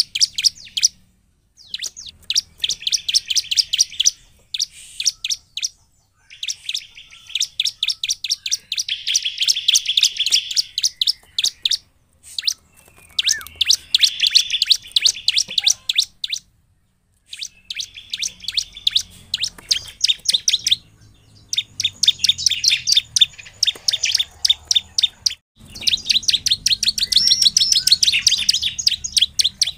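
Bar-winged prinia (ciblek) singing. It gives long, rapid runs of sharp, high chirping notes in bouts of a few seconds each, broken by brief pauses.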